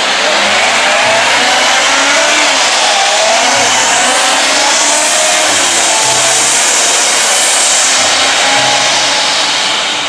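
Concrete mixer truck running and driving off, a loud steady engine and tyre rush that swells around the middle.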